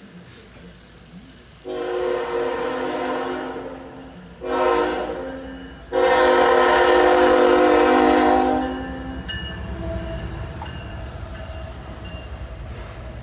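A CSX locomotive's air horn sounding a chord in three blasts: a long one, a short one, then a louder long one, followed by the low rumble of the train passing.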